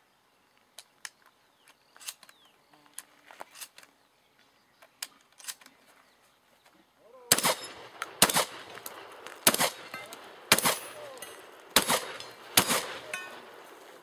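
Shotgun fired six times, about a second apart, starting about seven seconds in: a competitor's string of fire on a practical shotgun stage. Before the shots, only faint scattered clicks and knocks.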